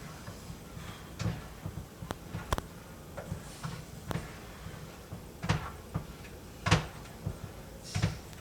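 Kitchen cupboard doors and items being handled: a series of scattered knocks and clicks, a second or so apart, with some light rustling between them.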